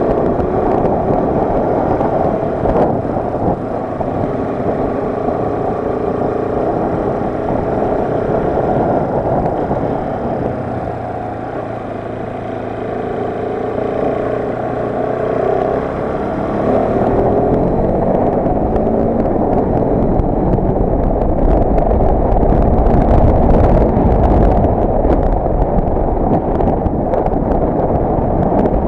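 Motorcycle engine running while riding, its pitch rising and falling with the throttle, with a heavy low rumble of wind on the microphone building over the second half.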